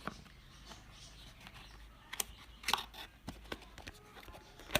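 Unpacking handling noises from a small cardboard box: scattered light clicks and short rustles of card and paper, the loudest a little over two and a half seconds in.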